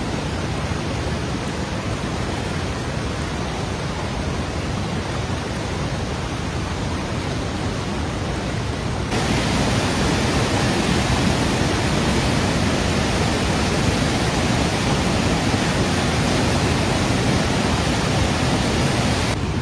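Flash-flood water rushing steadily, a continuous hiss of moving water. About nine seconds in it turns louder and deeper as a wide, muddy torrent.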